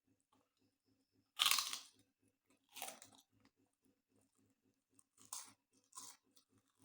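Close-up crunching of crisp fried food being bitten and chewed: four separate crunches, the first, about a second and a half in, the loudest.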